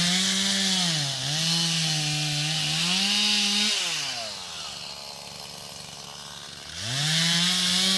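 Stihl two-stroke chainsaw revving to full throttle and cutting brush, its pitch dipping briefly under load. It drops back to idle about four seconds in, then revs up again near the end.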